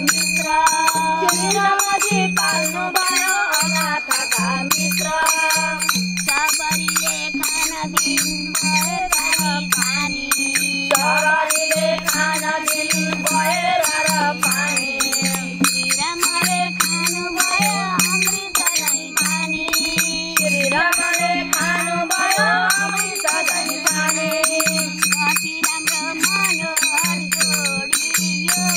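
Women singing a devotional kirtan hymn together, kept in time by small hand cymbals clashing in a steady rhythm, with a harmonium sounding under the voices.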